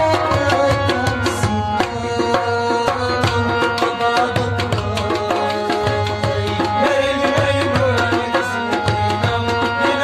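Live tabla and harmonium playing an instrumental passage: the harmonium holds sustained notes while the tabla plays a dense run of quick strokes.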